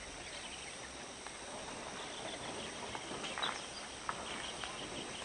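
Outdoor mountain-slope ambience: an insect chirping in a fast, even pulse that starts about two seconds in, over a steady background hiss, with a few short faint chirps.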